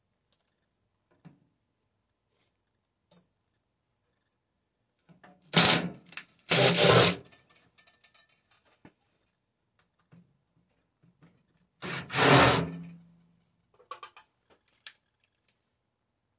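Three loud clattering knocks, as of something hard being handled or set down, with a few light clicks between them. The last knock leaves a short low hum.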